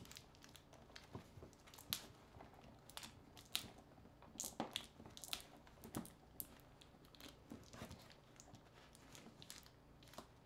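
Faint, irregular small clicks, scratches and crinkles of fingers working at an opened smartphone, picking and tugging at the battery's adhesive pull tabs.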